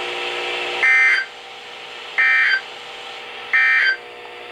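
NOAA Weather Radio SAME end-of-message code: three short bursts of buzzy digital data tones about a second apart, sent to close the required weekly test and reset alert receivers.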